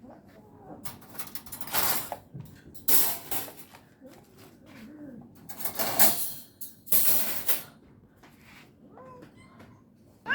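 Frightened cat hissing four times in short sharp bursts, with low moaning growls between them and a faint meow near the end.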